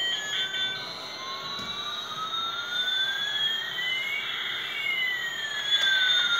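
Battery-operated toy airliner's electronic jet-engine sound effect: one synthetic whine rises steadily in pitch over several seconds while a second falls, the two crossing midway.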